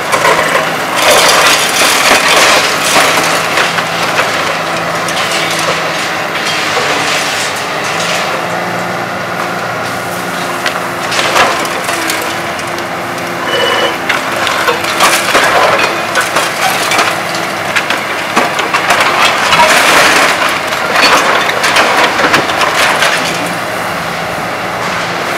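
Excavator demolition grapple crunching and breaking concrete and building debris in several loud, crackling bursts, with the machines' engines running steadily underneath.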